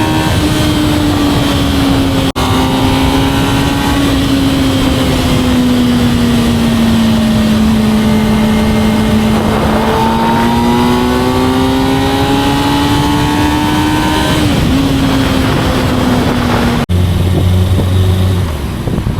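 Kawasaki ZX-6R's inline-four engine on the stock exhaust, running at a steady high pitch that sags slightly and then climbs again. The sound cuts out briefly twice, and after the second break a lower, steadier engine note takes over.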